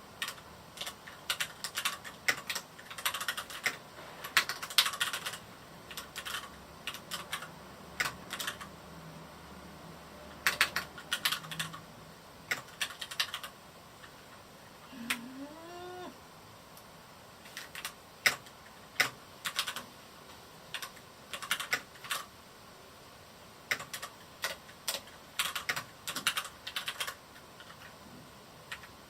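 Typing on a Varmilo Miya68 mechanical keyboard with Cherry MX Red linear switches: bursts of rapid keystrokes with short pauses between them. About halfway through, a short rising call sounds between the bursts.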